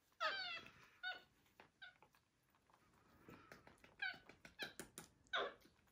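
White-faced capuchin monkeys squeaking: a high call that falls steeply just after the start, then a string of short high-pitched squeaks, with faint clicks between.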